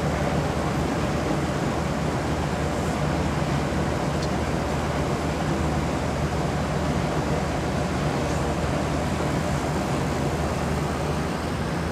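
A steady low mechanical hum under an even hiss, unchanging throughout.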